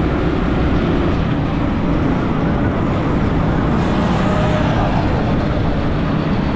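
Wind rushing over the microphone of a moving motorcycle, mixed with its engine running and the traffic around it: a loud, steady rumble.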